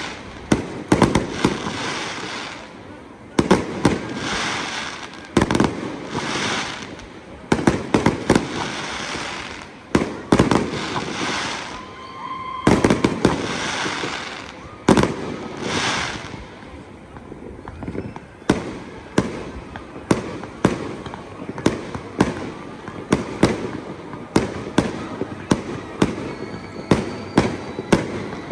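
Fireworks display: a rapid series of sharp bangs from launching and bursting shells, with a crackling hiss between them. The bangs come thick and loud in the first half, then lighter at about one or two a second.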